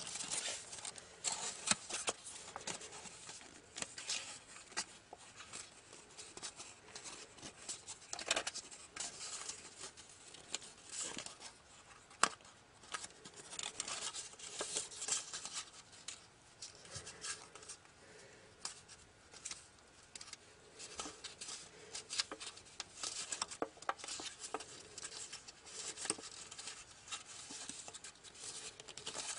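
Origami paper crinkling and crackling as fingers fold and crease it, in quick irregular crackles with a few sharper snaps.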